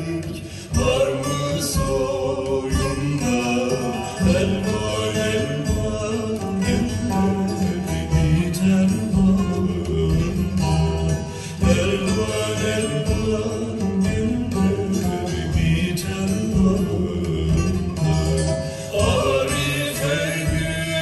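Turkish folk music playing from a vinyl record on a turntable: plucked string instruments with a voice singing.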